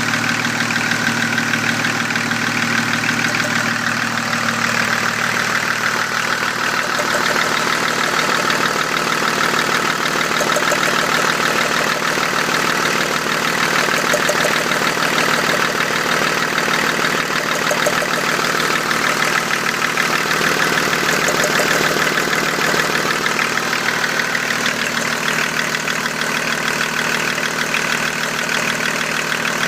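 BMW M51 D25 2.5-litre straight-six turbodiesel running steadily with a fast, regular knock whose cause is unknown.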